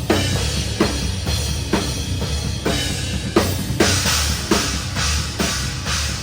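Metalcore band playing live, heard from close to the drum kit: a steady snare backbeat about once a second over bass drum and the rest of the band, with the cymbals getting brighter about four seconds in.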